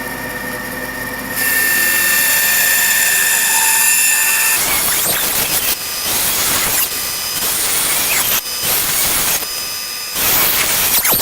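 Bandsaw running, then its blade cutting through a 2x4 block. The rough cutting sound breaks off briefly a few times as the piece is steered along the curves.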